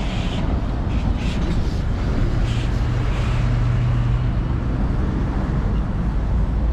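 Busy city traffic: a steady low rumble of motor vehicles, with a deep engine hum swelling louder in the middle and fading again.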